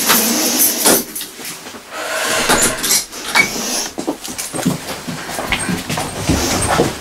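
Keys and a front-door lock being worked: a run of clicks and rattles as the door is unlocked and opened, followed by footsteps and shuffling.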